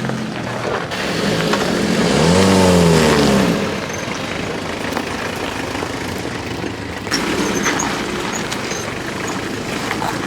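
An off-road vehicle's engine running, revving up and dropping back once about two seconds in, then a steady rumbling noise.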